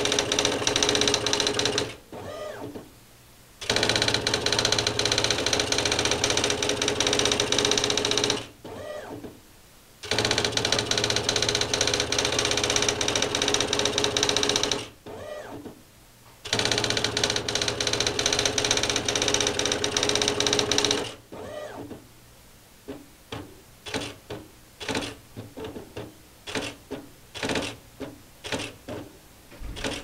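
IBM Wheelwriter 6 daisy-wheel typewriter printing lines of text under computer control, with long runs of rapid, machine-gun-fast character strikes. About every six seconds the clatter stops for a second or so, with a short whir as it moves to the next line. About two-thirds of the way in, the strikes slow to separate, spaced clacks.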